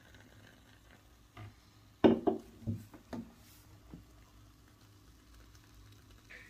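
Faint pouring of cola from a can into a plastic cup, then about two seconds in a cluster of four or five sharp knocks over about a second as the aluminium can is set down on the table and handled.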